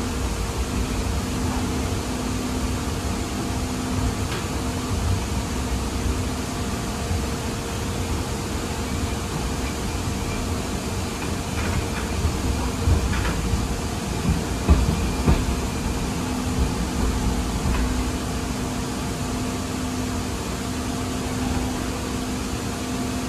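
Inside a Siemens LRV4 light-rail car as it runs: a steady low rumble from the wheels and track under a constant hum. A few knocks and rattles come about halfway through.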